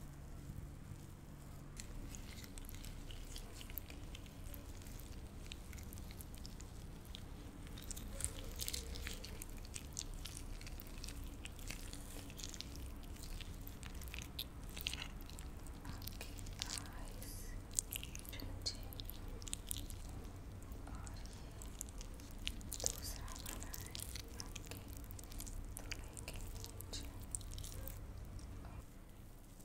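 Soft, irregular crackles and clicks of ASMR hand sounds close to the microphone, over a faint low hum.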